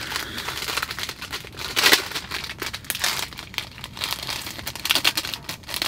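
Paper or packaging being crumpled and torn by hand, an irregular run of crackling rustles with a louder burst about two seconds in.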